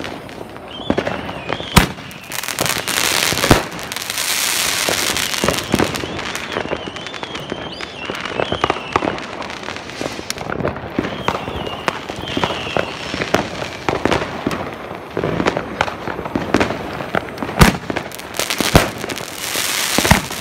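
New Year's Eve fireworks going off: a dense crackle and hiss of rockets and firecrackers with sharp bangs throughout, several very loud ones near the end. Wavering high whistles rise over the crackle twice.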